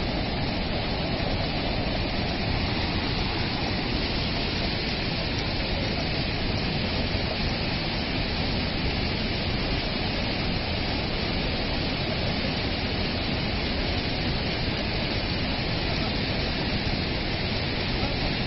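Large monsoon-fed mountain waterfall cascading, a loud, steady, unbroken rush of falling water.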